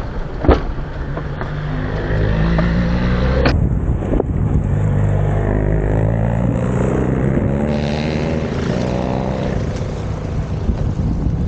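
Daihatsu Atrai kei van's 660 cc turbocharged engine running steadily while driving slowly along a rough dirt track, with road rumble from the tyres. The sound changes abruptly about three and a half seconds in.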